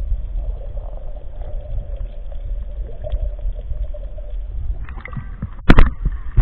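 Muffled sound from a camera submerged in seawater: a steady low rumble with a faint drone. About five seconds in the camera is lifted out of the water, and the sound turns brighter and rougher, with two loud knocks of handling near the end.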